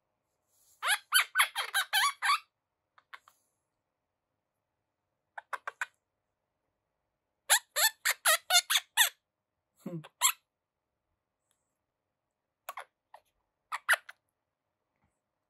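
Quaker parrot (monk parakeet) chattering in bursts of quick, squeaky chirps: a run of about a second and a half near the start, a longer run past the middle, and shorter clusters near the end, with one call that sweeps down in pitch.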